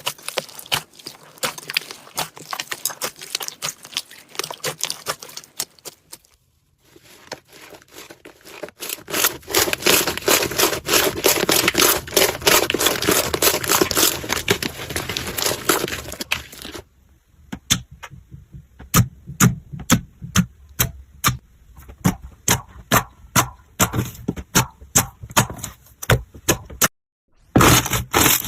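Slime being squeezed and pressed by hand, making dense crackling and clicking, then from a little past halfway a run of separate sharp pops, about three a second. The sound breaks off briefly twice.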